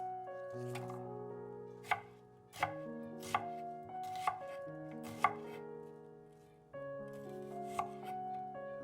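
Knife chopping on a cutting board: about six separate strokes at an uneven pace, over soft background music with slow held chords.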